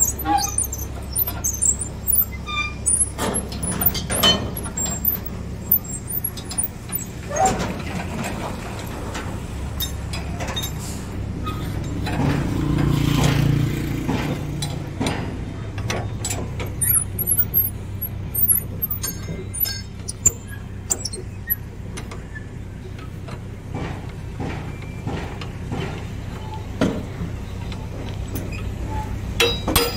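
Steel spanners clinking and knocking against the nuts and bolts of a truck chassis clamp as they are turned and tightened, with a quick run of clinks near the end. A vehicle engine runs under it and swells louder a little before halfway through.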